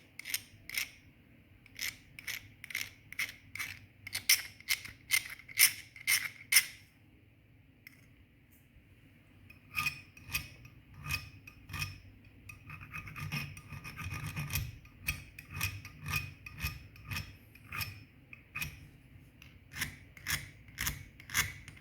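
Sandpaper rasping against the metal edge of a Zippo Replica 1935 lighter case in short back-and-forth strokes, about two a second, flattening the raised edges left by a slanted factory cut. The strokes stop for a couple of seconds about seven seconds in, then start again.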